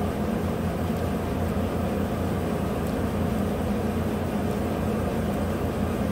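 2015 GMC Sierra's 5.3 L V8 idling steadily.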